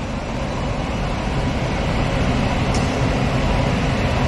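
HO-scale model trains running on the layout's track: a steady rumbling rattle of wheels and motors on the rails, growing gradually louder.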